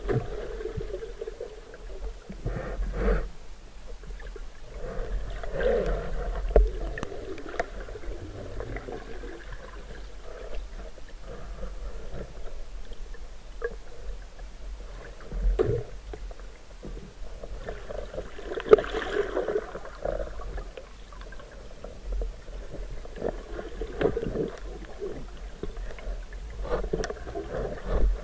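Muffled underwater noise picked up by a submerged camera: a low rumble and gurgling water, with irregular knocks and bumps against the housing. The loudest knock comes about two-thirds of the way through.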